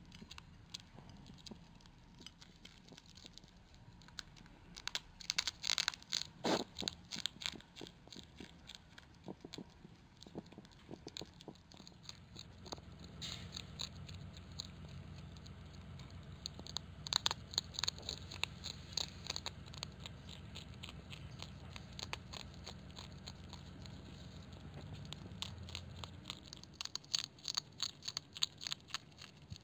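European hedgehog chewing dry cat-food kibble: quick runs of sharp, crunching chews in bursts, loudest a few seconds in, around the middle and near the end.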